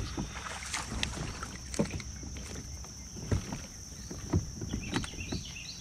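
Irregular knocks and bumps on a fishing kayak's hull, about five sharp ones, as things move about in the boat.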